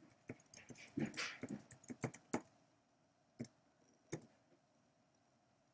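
Typing on a computer keyboard: a quick run of key clicks, then after a short pause two single clicks.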